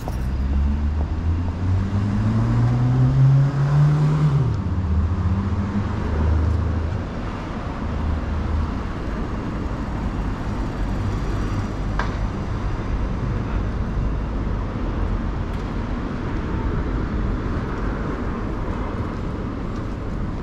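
Road traffic. A vehicle's engine rises in pitch for about four seconds as it accelerates, then drops abruptly, and a steady hum of traffic noise follows.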